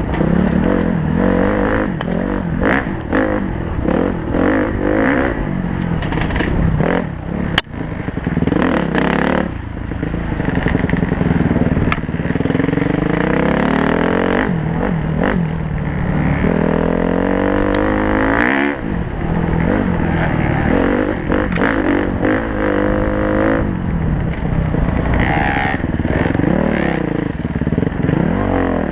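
Honda CRF four-stroke dirt bike engine running under hard riding, its pitch repeatedly climbing as the throttle opens and dropping at gear changes and off the throttle, with a sharp knock about seven and a half seconds in.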